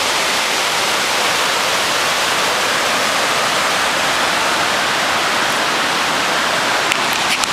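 Waterfall rushing with a steady, loud hiss of falling water, with a few faint clicks near the end.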